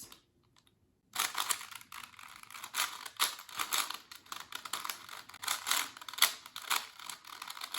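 Older Rubik's-brand 4x4 speedcube being turned quickly by hand: a dense run of plastic clicks and clacks from the layers, starting about a second in. The cube turns roughly and barely corner cuts.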